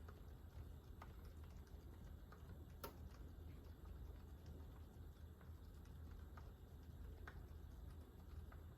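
Quiet, irregular keystrokes on a GMMK Pro mechanical keyboard with a brass plate and fully lubed Gazzew Boba U4 silent tactile switches, with one sharper stroke about three seconds in.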